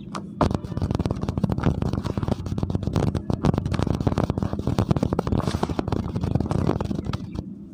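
Hands digging into and squeezing dry, crumbly soil in a plastic basin: dense crackling and crunching that starts about half a second in and stops near the end. It sounds harsh, recorded through a damaged microphone.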